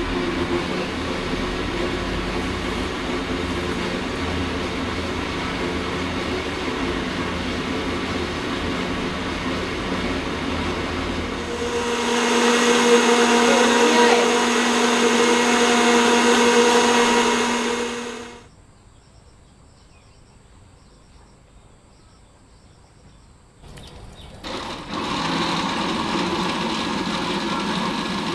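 Electric blender running with a steady motor sound. It speeds up and gets louder about halfway through, stops for about five seconds, then starts again.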